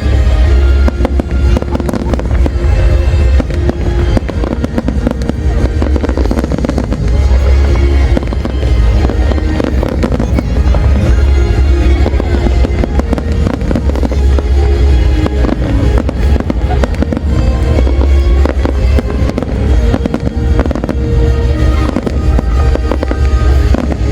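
A large fireworks display going off non-stop: a dense, unbroken run of bangs and crackles, with music playing underneath.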